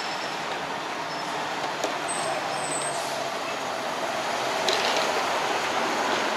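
City street traffic on a wide boulevard: steady road noise of passing cars and a truck, with a brief high squeal a little over two seconds in.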